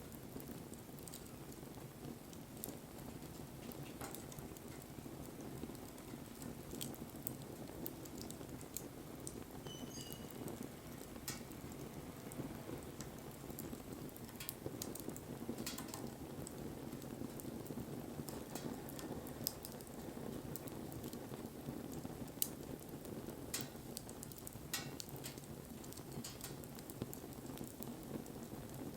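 Wood fire burning: a low steady rush of flames with scattered sharp crackles and pops. A brief high-pitched chirp sounds about ten seconds in.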